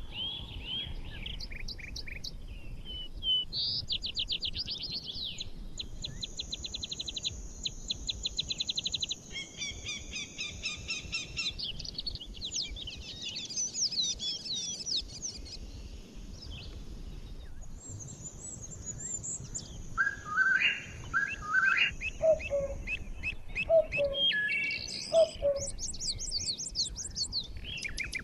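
Daytime forest birdsong: several birds singing and twittering over one another. The calls include fast trills, rapid runs of chirps, a thin high note held for a few seconds twice, and short lower notes in the second half.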